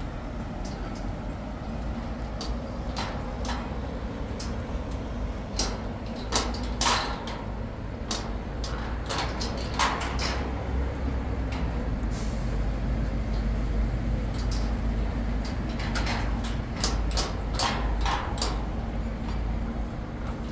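Steady low city-traffic rumble with a faint engine hum, and runs of short sharp clicks and taps.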